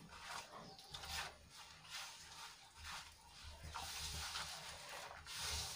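Faint rubbing and scraping of a hand kneading crumbly gram-flour (besan) dough against the inside of a stainless steel bowl, as water is worked in to bind it.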